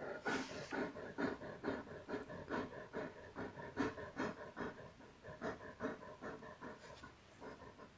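Dog panting rapidly and steadily, about four to five quick breaths a second, stopping near the end.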